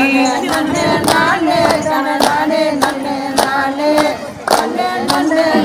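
Tamil devotional song to the goddess Veeramakali: several voices singing together over a sharp clapping beat about twice a second. It cuts off abruptly at the end.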